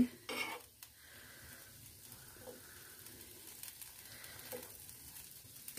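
Faint sizzle of a buttered pav bun on a hot tawa, with soft scrapes of a steel spoon spreading chana masala over it, the loudest scrape a fraction of a second in.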